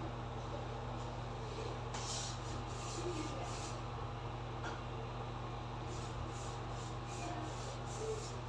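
Waterproof paint being spread on a wall in quick rubbing strokes, about four a second, in two runs, the first about two seconds in and the second near the end. A steady low hum runs underneath.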